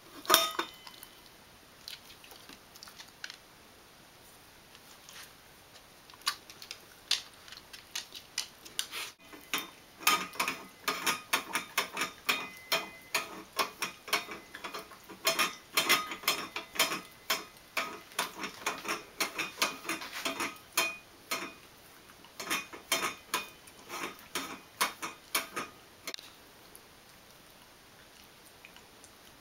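A dog licking an emptied stainless-steel food bowl in a metal stand: quick ticks and clinks of tongue and bowl against metal, about three or four a second, starting several seconds in and stopping a few seconds before the end.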